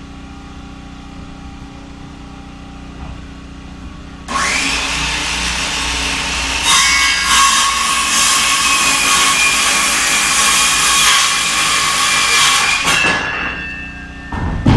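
Electric power saw spinning up with a high whine and cutting through a wooden framing board, then winding down near the end. A steady low hum runs underneath, from the generator powering the saw.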